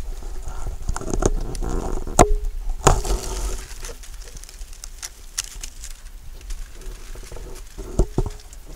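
Dry corn leaves and husks rustling and crackling in irregular clicks and snaps as they are brushed, over a low rumble; the densest rustling comes in the first few seconds.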